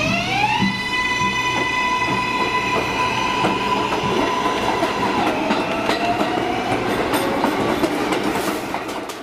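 New York City Subway train pulling out of a station: the propulsion whine rises in pitch as it accelerates, then holds a steady tone, over continuous clatter of wheels on the rails.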